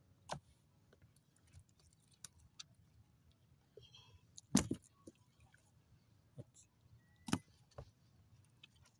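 A few sharp knocks and clicks over a quiet background: three louder ones a few seconds apart, with fainter ticks between.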